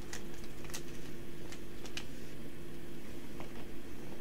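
Yu-Gi-Oh trading cards being handled and flipped through by hand: scattered light clicks and snaps of card stock at irregular intervals, over a steady low hum.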